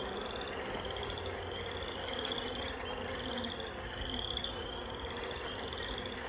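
Honeybees humming low and steadily in an open hive. Over the hum, a high rising call repeats a little more than once a second.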